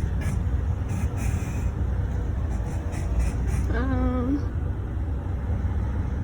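Low, steady rumble of a car idling, heard from inside the cabin with the window down. About four seconds in, a short pitched hum with overtones sounds for about half a second.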